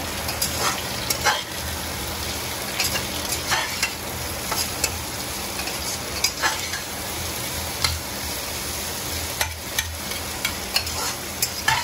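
Diced potatoes and sliced onions sizzling in mustard oil in an open pressure cooker, stirred with a metal spatula that clicks and scrapes against the pot at irregular moments.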